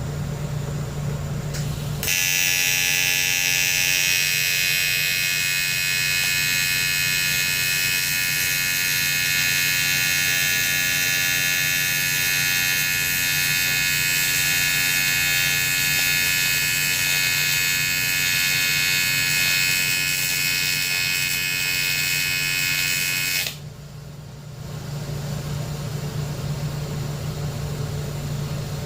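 TIG welding arc on a KX85 swingarm, welding in a machined thread insert: one steady arc of about twenty seconds that starts about two seconds in and cuts off suddenly, over the steady hum of the welding machine.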